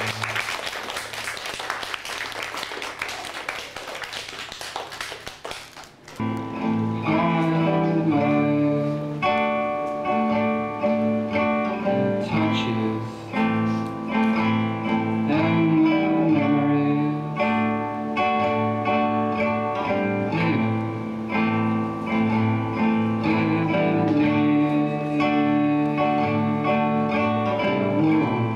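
A loud rushing noise with no clear notes for about six seconds, then guitar music starts abruptly: plucked notes in a repeating pattern that runs on.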